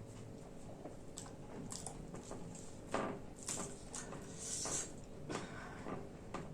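Close-up eating sounds: chewing and wet mouth noises with scattered sharp clicks, the loudest about three seconds in.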